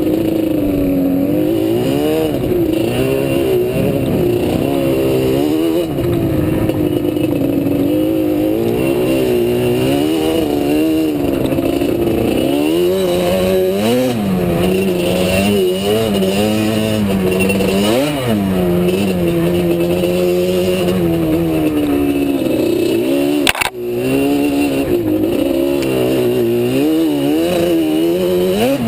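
ATV engine running under a rider, revving up and easing off again and again as the throttle is worked along a trail. One sharp knock about two-thirds of the way through.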